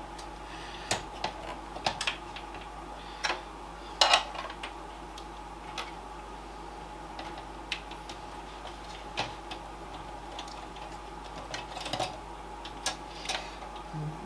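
Irregular light clicks and knocks of SATA data and power cables and their plastic connectors being handled and pushed onto an SSD inside a desktop PC case. The loudest knock comes about four seconds in, over a steady background hum.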